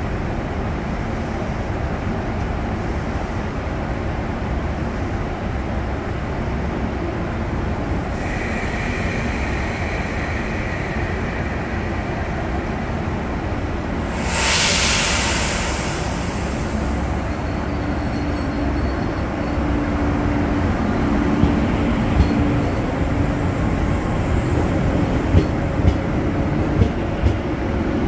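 JR 381 series electric train standing at the platform with a steady rumble. About halfway there is a loud burst of air hissing from the train, then its motors start up with a low tone that rises in pitch as it pulls away, and a few sharp clicks come near the end.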